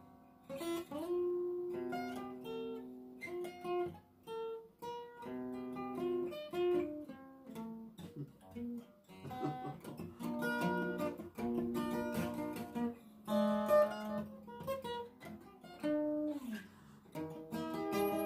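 Solo acoustic guitar playing an instrumental passage of picked melody notes and chords, a few notes sliding in pitch.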